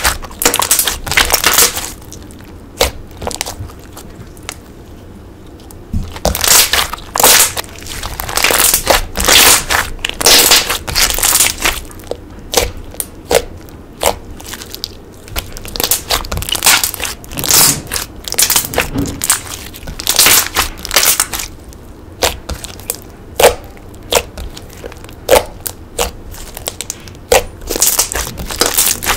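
Slime being squeezed, poked and stretched by hand, giving dense runs of crackling clicks and pops with a couple of short pauses.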